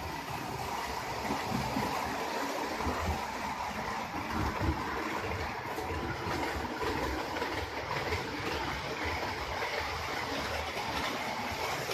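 HO scale model trains running on the layout's track: a steady rolling whirr of wheels on rails and small motors, with faint clicking over the rail joints.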